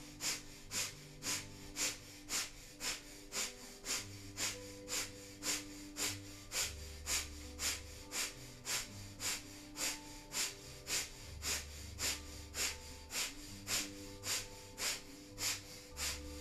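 Breath of fire: quick, forceful, rhythmic exhales through the nose, like a dog panting, about two a second at an even pace.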